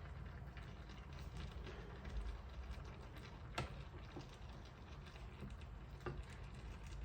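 A few faint, sharp clinks and knocks of dishes and utensils as soup is served, over a low steady hum.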